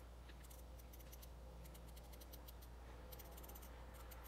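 Klein 65200 72-tooth mini bit ratchet clicking faintly as its head is turned by hand, the pawl ticking over the teeth in short runs of quick clicks.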